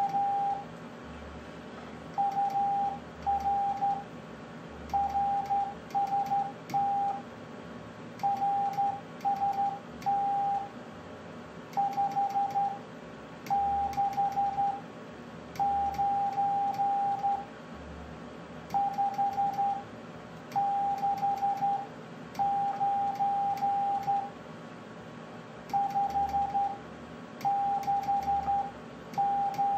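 Morse code (CW) sent by hand on a straight key: a steady beep keyed into dots and dashes, in character groups separated by short pauses. Faint clicks and a low hum go with each keyed element.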